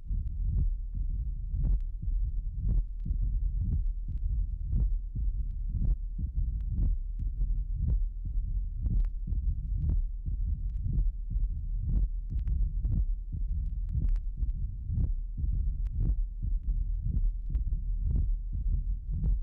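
Recorded heart sounds of mitral stenosis, taken at the apex of the heart: a loud, accentuated first sound preceded by a diastolic crescendo murmur, and a split second sound. The beats repeat evenly, about one a second.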